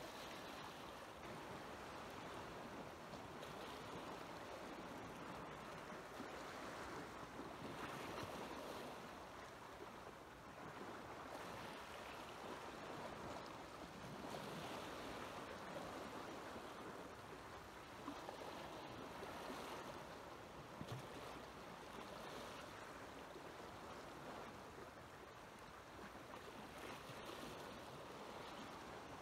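Small waves washing against a rocky shoreline: a soft, steady rush of water that swells and eases every few seconds.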